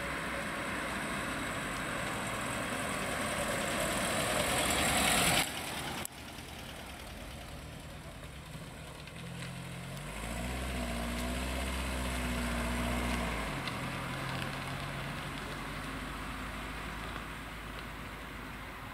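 1960 NSU-Fiat Neckar 1100 Spezial's four-cylinder petrol engine. Road and engine noise builds to a peak about five seconds in, then cuts off; later the engine runs at idle, with its note swelling and deepening for a few seconds near the middle before settling back to a steady idle.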